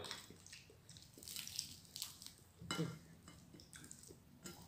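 A person chewing and crunching fried fish, with soft wet mouth clicks and smacks at an irregular pace.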